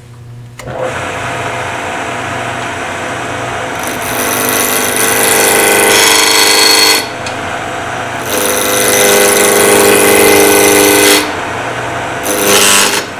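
Wood lathe switched on about half a second in and running at 1800 RPM with a steady motor hum. A spindle roughing gouge cuts the spinning blank in three loud passes, the longest two running for about three seconds each, as the square blank is roughed toward round.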